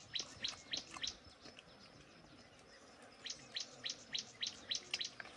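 A bird calling: a rapid series of short, high chirps, about three or four a second. One bout comes at the start, and a longer one from about three seconds in, over a faint outdoor background.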